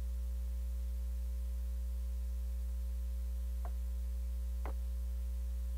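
Steady electrical mains hum in the microphone feed. About two-thirds of the way in there are two faint ticks a second apart, from paper being handled at the lectern.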